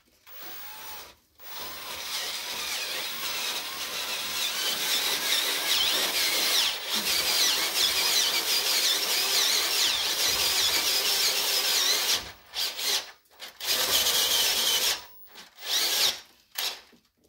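Cordless drill boring a 3/4-inch Harbor Freight bit into a Dana 60 steel steering knuckle, the bit screeching and squealing as it cuts metal to enlarge a tapered hole. It cuts steadily for about ten seconds, then stops and restarts in several short bursts near the end.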